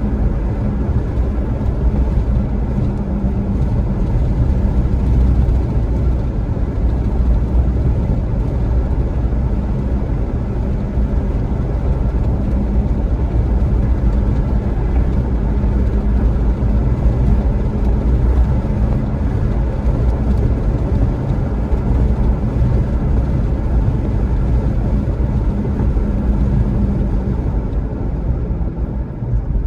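Vehicle engine and road noise from driving at a steady speed, a constant low hum with a steady drone. The drone eases slightly near the end.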